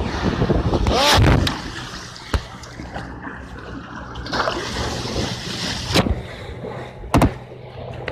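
Water splashing and rushing along the hull of a vehicle moving through water, over a steady low engine hum. The splashing is loudest about a second in, and there are a few sharp knocks near the end.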